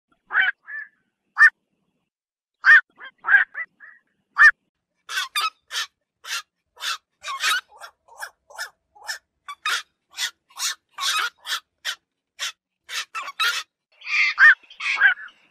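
Black-crowned night herons calling with short, harsh 'kwok' squawks. A few spaced calls come first, then from about five seconds in a quick run of two or three calls a second, crowding together near the end.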